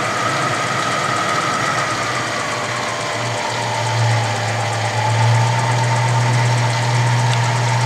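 Clausing horizontal milling machine running in back gear with its spindle turning slowly: a steady motor hum, louder from about four seconds in, with a whining tone that sinks a little in pitch about three seconds in and then holds steady.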